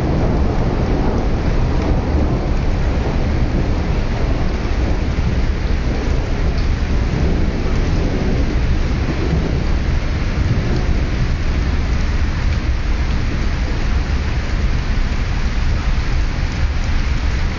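Steady thunderstorm noise picked up by a mobile phone's microphone: an even hiss of rain over a deep, continuous low rumble, with no single thunderclap standing out.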